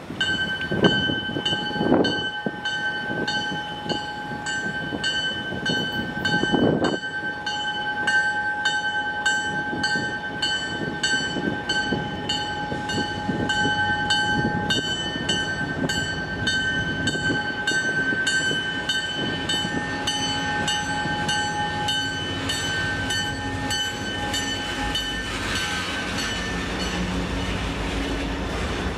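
A bell ringing in steady, evenly spaced strokes over the noise of a freight train getting under way behind its diesel locomotives. The bell fades near the end as a deep engine rumble rises.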